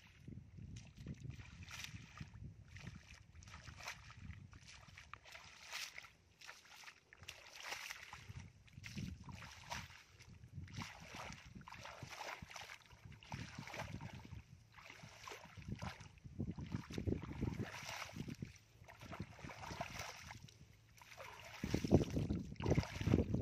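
Bare feet walking through wet grass and shallow muddy water, rustling and splashing in an uneven rhythm, with louder sloshing near the end as water pours from the plastic basket.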